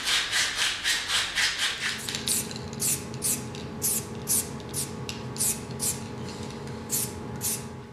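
Aerosol spray paint can: a quick rattle of short ticks for about the first two seconds as it is shaken, then short spray hisses, about two a second. A faint steady hum lies underneath.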